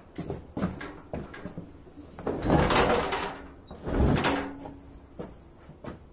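Heavy steel garden-tractor rototiller attachment being handled and shifted on wooden floorboards: a run of knocks and clanks, then two longer scraping drags in the middle, followed by a short squeak and a few more knocks.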